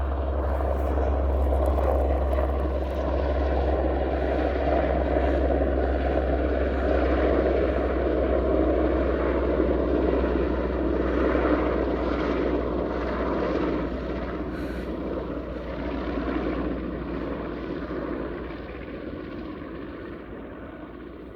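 Military helicopter flying low overhead, its rotor and engine noise steady for most of the time, then fading away over the last several seconds as it moves off.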